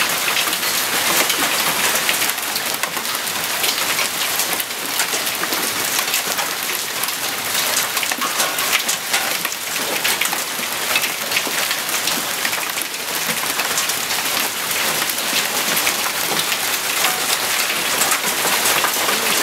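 Hail mixed with heavy rain falling on hard outdoor surfaces: a dense, steady patter of countless small ticks over the hiss of the downpour.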